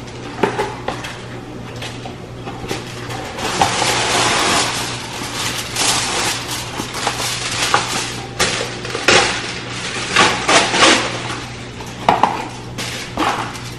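Aluminium foil crinkling and rustling as a sheet is pulled from its box and pressed over a foil-covered baking pan, in irregular crackly bursts that get busier about three and a half seconds in.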